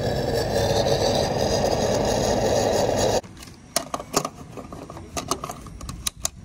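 Gasoline rushing from a pump nozzle into a car's filler neck for about three seconds, cutting off suddenly. This is followed by a run of sharp clicks as the fuel cap is screwed on and ratchets tight.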